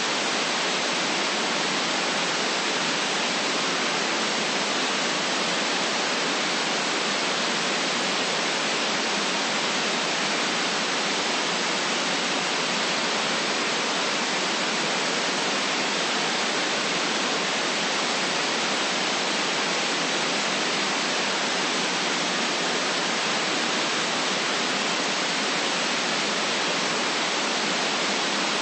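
Steady static hiss, even and unchanging, with most of its weight in the upper middle and little bass.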